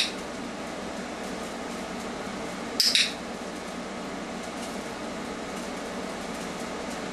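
A dog-training clicker gives a quick double click right at the start and again about three seconds in, marking the puppy for holding the down position, over a steady hiss.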